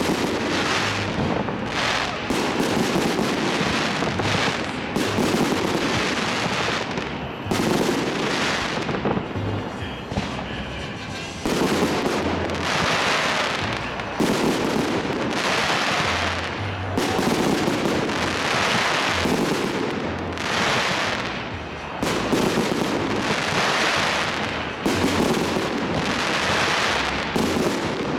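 Fireworks display: aerial shells bursting one after another every second or two, loud booms with crackling between them, and a short lull about ten seconds in.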